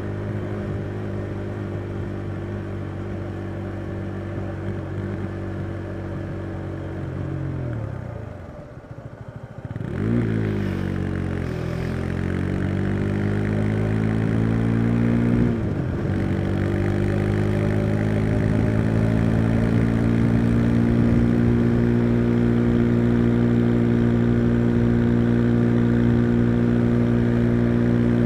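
Husqvarna Svartpilen 401's single-cylinder engine under way. Its note falls away as the bike slows about a third of the way in, then rises again as it accelerates, with a gear change about halfway through. It then settles into a steady cruise.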